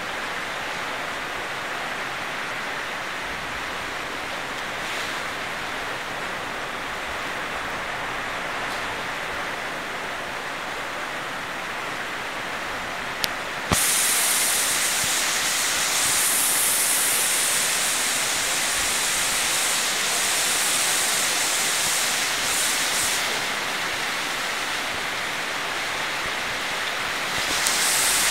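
Cloudburst rain pouring down in a steady rush. About halfway through, a short click is followed by a sudden jump to a louder, hissier rush that keeps going.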